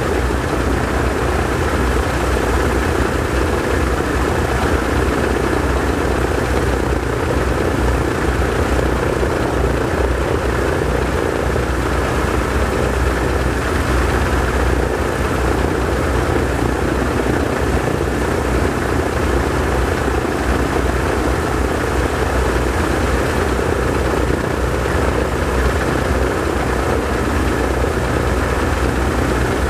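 Both Pratt & Whitney R-1830 Twin Wasp radial engines of a PBY Catalina running steadily on the ground, their propellers turning, giving an even, unbroken drone.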